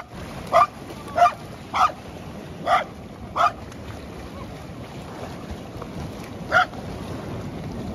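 A pet dog barking: a quick run of five barks over the first three and a half seconds, then one more a few seconds later, over a steady background rush of surf or wind.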